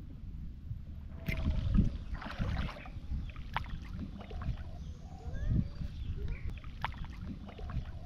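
Shallow water splashing and sloshing in two short bursts early on, over a steady low wind rumble on the microphone; faint short chirping calls come in over the second half.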